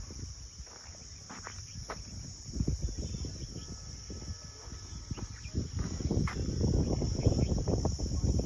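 Steady high-pitched insect chirring in the field, with an irregular low rumble of wind on the microphone that grows louder over the last few seconds.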